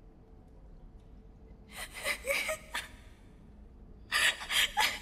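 Two short bursts of a person's breathy, wordless vocal sounds, about two seconds in and again near the end, over a faint low hum.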